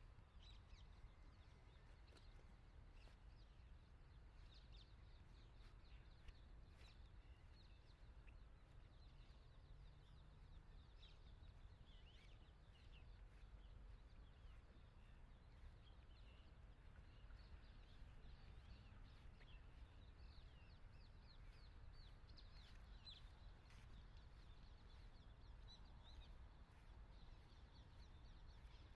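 Near silence: faint outdoor ambience of scattered distant bird chirps over a low steady rumble.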